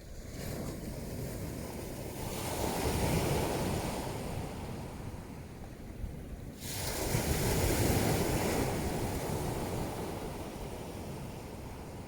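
Ocean surf on a pebble beach: two waves break and rush up the shore, the first about two seconds in and the second about seven seconds in, each swelling to a rushing hiss and then easing off.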